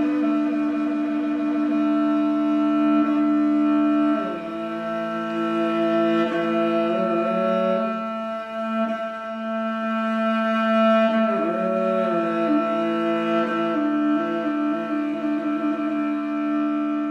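Background music with long held notes; the notes change about four seconds in and again after about eleven seconds.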